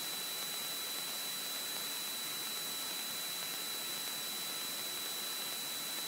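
Steady electronic hiss with a thin, high, steady whine over it, like static on an audio line. There is no engine drone in it.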